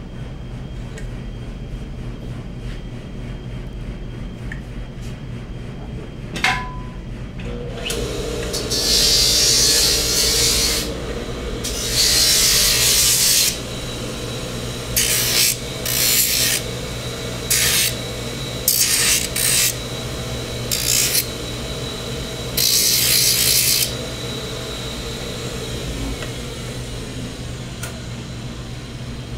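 Shop sanding machine with a spinning sanding drum running steadily. From about eight seconds in, the bottom of a laminated prosthetic socket is pressed against the drum in about nine short rasping passes, flattening the surface so the pyramid adapter will sit flat.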